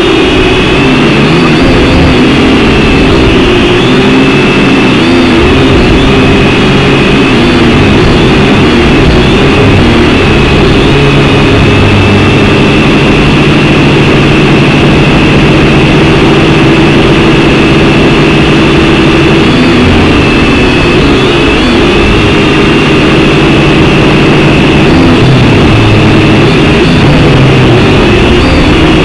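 Syma X5C toy quadcopter in flight, its brushed motors and propellers whining loudly and steadily, the pitch wavering up and down as the throttle changes. One of its motors is newly replaced, and this is its test flight.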